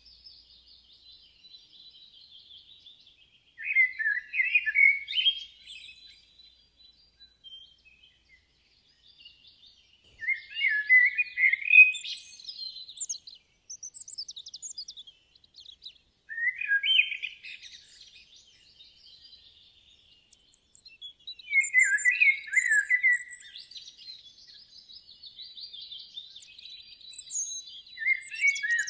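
Birds singing in chirping phrases of a second or few, coming roughly every five or six seconds, with a faint high trill filling the gaps between them.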